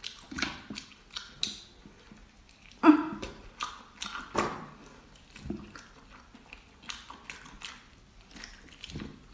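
Close-up eating sounds of biting and chewing into the head of a whole cooked octopus: irregular wet mouth clicks and smacks, a few louder ones about three and four and a half seconds in.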